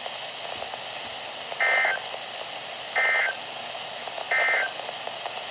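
Three short warbling data bursts of an Emergency Alert System (SAME) signal, each about a third of a second long and spaced a little over a second apart, over a steady radio hiss. They are the end-of-message code that closes the broadcast alert.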